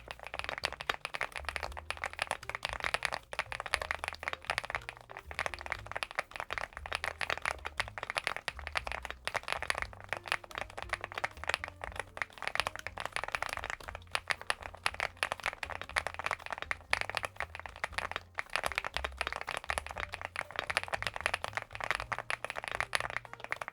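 Fast continuous typing on a CIDOO V75 Plus gasket-mount mechanical keyboard, many keystrokes a second clacking without a break.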